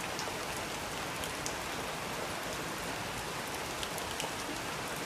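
Steady rain falling, an even hiss with a few single drops ticking now and then.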